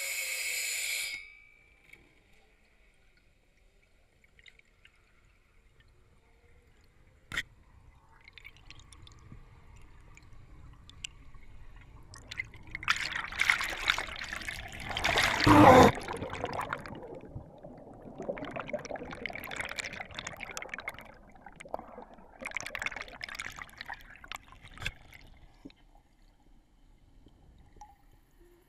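Underwater air bubbles and swirling water picked up through a GoPro's waterproof housing, coming in waves and loudest around the middle. A loud hiss cuts off about a second in, and there is one sharp click about a quarter of the way through.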